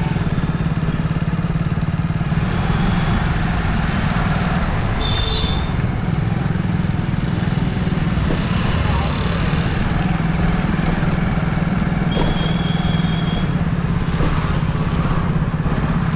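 A motorcycle engine running steadily while riding through street traffic, with general traffic noise around it. Two short high-pitched tones stand out, a brief one about five seconds in and a longer one about twelve seconds in.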